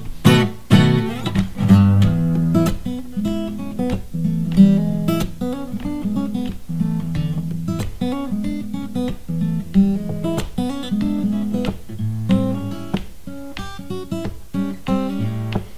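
Background music: strummed and picked acoustic guitar playing a steady, even rhythm.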